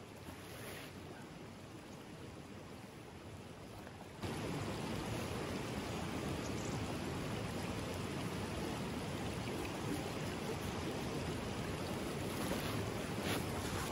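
Shallow stream running over rocks: a steady rushing hiss that gets suddenly louder about four seconds in. A few faint rustles near the end.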